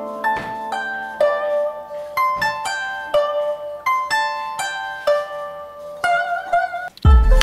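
Background music: a plucked-string melody of separate notes, about two a second. Just before the end a louder, fuller passage with deep bass comes in.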